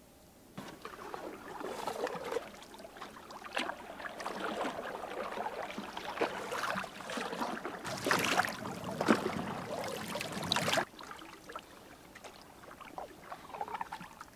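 Wooden canoe paddles dipping and pulling through calm creek water, with splashing and water swishing past the blade and hull. The sound is fullest for about three seconds past the middle, then cuts off sharply to quieter paddling.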